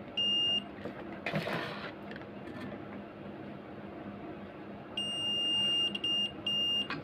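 A digital multimeter's continuity buzzer beeps as the probes bridge components on an inverter circuit board: one short high beep, then near the end a beep of about a second followed by two short ones. Each beep signals a short or near-zero resistance across the part being tested. A brief scratchy noise comes between the beeps.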